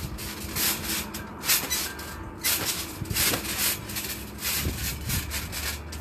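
A trampoline mat being bounced on by a barefoot boy: a thud with each bounce, roughly every second, over a steady rustling hiss.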